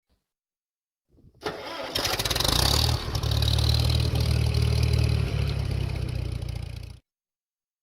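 A farm tractor's engine cranking and starting, catching about three seconds in and running steadily, then cutting off suddenly near the end.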